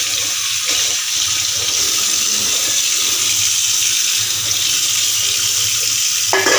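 Kitchen tap running into a sink, a steady even hiss of water.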